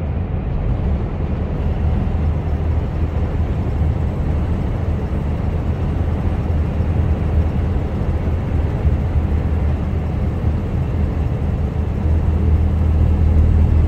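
Mercedes Actros HGV cruising at motorway speed, heard from inside the cab: a steady low engine drone under tyre and road rumble. It grows a little louder near the end.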